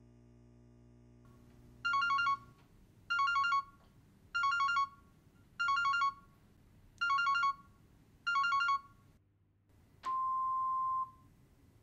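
Yealink cordless phone handset ringing in its cradle: six short trilling rings about 1.3 s apart. The ringing stops unanswered, and about ten seconds in a single steady beep of about a second sounds as the answering machine picks up.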